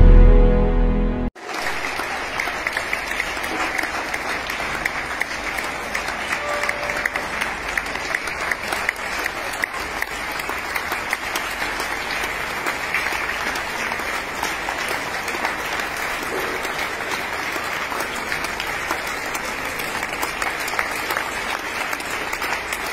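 A short music jingle that cuts off abruptly about a second and a half in, followed by many people clapping steadily, a dense continuous applause from a crowd of residents spread around the apartment blocks.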